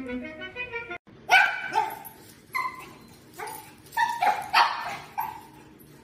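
Puppy barking: a run of seven or eight short, high barks, after music cuts off about a second in.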